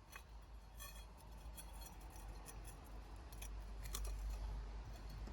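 A few faint, sharp clicks and light taps of small parts being handled, over a low steady rumble.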